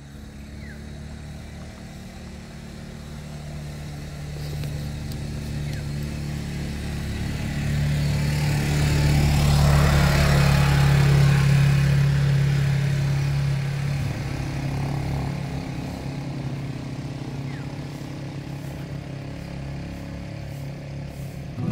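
ATV (quad bike) engine passing by: it builds up, is loudest about ten seconds in, then slowly fades as the quad moves off.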